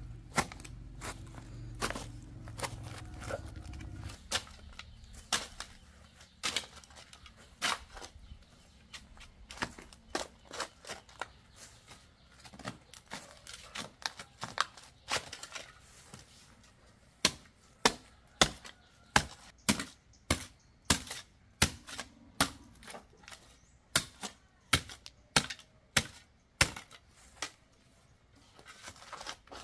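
Long-handled spade jabbing into dry, stony soil while digging: sharp chopping strikes, scattered at first, then a steady run of louder strikes at about two a second in the second half.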